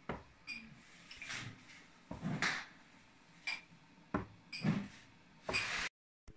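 Footsteps on a hard floor: sharp, slightly ringing clicks about once a second, with rustling between them. The sound cuts out completely for a moment near the end.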